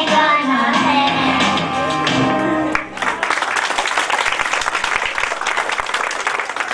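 Children singing a song over backing music, which stops about three seconds in. An audience then applauds until the end.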